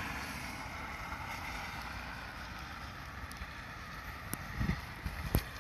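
Steady outdoor hiss beside a wet road, fading over the first two seconds, then a few short knocks near the end from the phone being handled.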